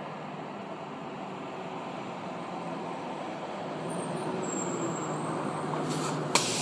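City transit bus approaching and pulling in to the stop, its engine and tyre noise growing steadily louder, with a sharp click near the end as it comes to a halt.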